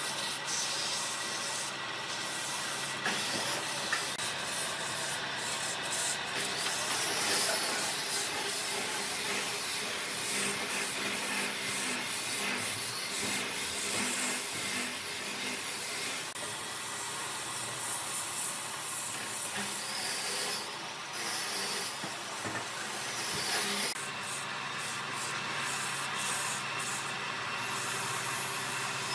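A power sander running over a surface: a steady rubbing noise over a faint motor hum, with the level shifting a little as it moves.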